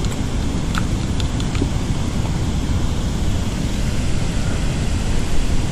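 Steady rushing of water pouring out through the open dam spillway gates, a dense noise heaviest in the low end. A few light clicks come about a second in.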